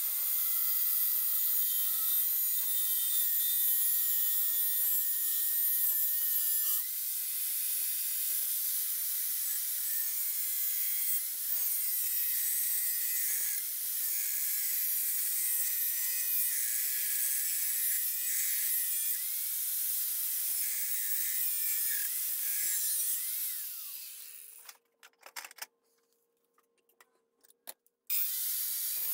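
Makita angle grinder with a thin cut-off disc cutting through steel flat bar: a steady hiss with a whine over it. About 24 seconds in the cutting stops, leaving near silence and a few clicks, and the cutting sound starts again near the end.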